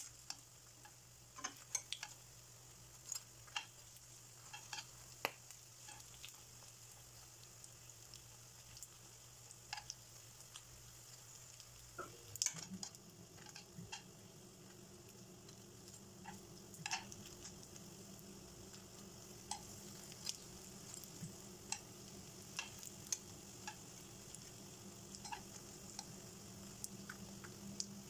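Lumpia rolls sizzling in shallow oil in a non-stick frying pan, with scattered clicks of metal tongs against the pan as the rolls are turned. A low steady hum comes in about halfway through.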